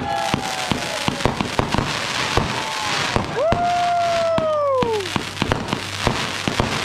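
Aerial fireworks going off: a rapid run of sharp bangs and crackles. Between about three and five seconds in, a whistling firework sounds, holding its note and then falling in pitch.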